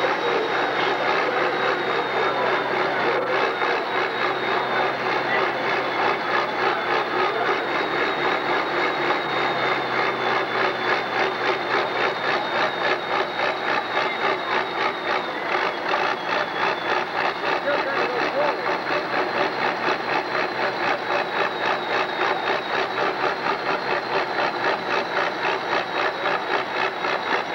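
Farm stock pulling tractor's diesel engine running at the sled hook-up without moving, steady and loud, with a regular pulsing beat and a steady high whine over it.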